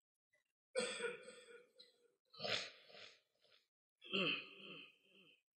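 A man clearing his throat and coughing close to a microphone, in three short, faint bursts about a second and a half apart, during a pause in Quran recitation.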